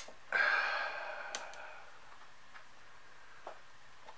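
A man's long exhale, a sigh of relief once the board has seated under heavy pressure, starting suddenly and fading out over about a second and a half, with a single light click near the end of it.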